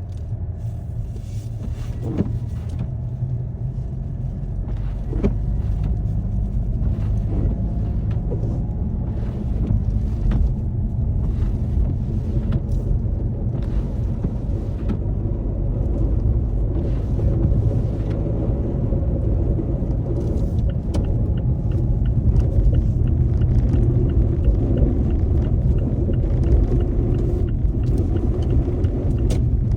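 Car driving along, its engine and tyre noise making a steady low rumble that slowly grows louder, with a few faint clicks.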